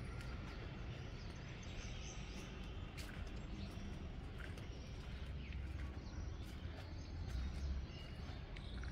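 Outdoor ambience: a steady low rumble that swells briefly near the end, with faint scattered bird chirps.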